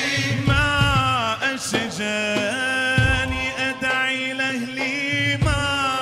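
Male vocal ensemble singing an Islamic nashid with drum accompaniment: a wavering, ornamented vocal line over a long-held low note, with a few drum strikes.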